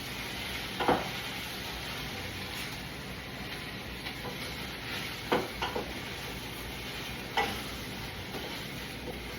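Onions sizzling as they caramelize in a pot, a steady frying hiss, with a few sharp knocks: once about a second in, three close together around five to six seconds, and once past seven seconds.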